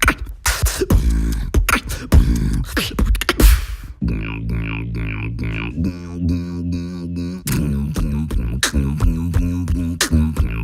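Human beatboxing: fast mouth-made kick and snare hits, then about four seconds in a pitched, buzzing vocal bass that pulses for a few seconds, then quick percussive hits again.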